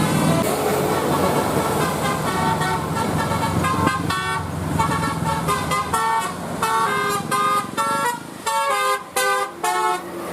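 Tour bus 'telolet basuri' multi-tone musical horn playing a quick tune of short stepped notes, with engine noise underneath that fades about halfway through. Near the end the notes come in separate short bursts with brief gaps.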